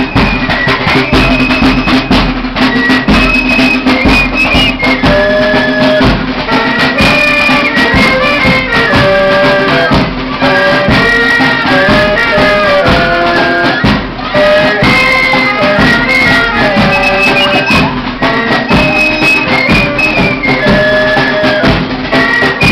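Street band playing a lively tune: saxophones and other wind instruments carry the melody over a steady beat of snare drums and a bass drum.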